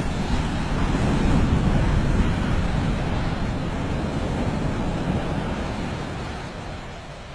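Wind buffeting the microphone in a loud, low rush that starts abruptly, swells and then slowly fades away.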